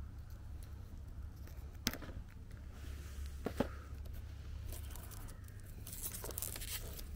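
A shrink-wrapped cardboard retail box being opened one-handed: a few sharp clicks and taps of fingers and cardboard, then crinkling and tearing of the plastic wrap near the end.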